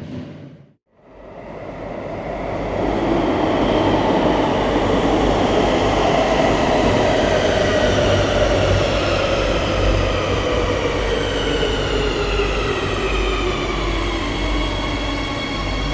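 Madrid Metro Serie 8000 electric train running, its traction motors whining in several tones that glide slowly downward in pitch over wheel and rail rumble.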